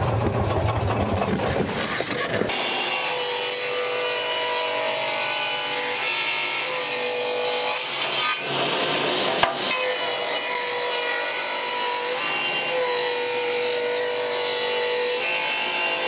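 Table saw ripping 2x boards lengthwise, the blade cutting steadily with a held whine from about two seconds in and a brief dip in the cut about eight seconds in.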